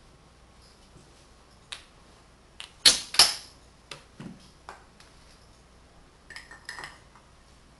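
Tegu magnetic wooden blocks clicking together as they are handled: a scattered run of sharp wooden clicks. The loudest two come close together about three seconds in, and a few smaller ones follow near the end.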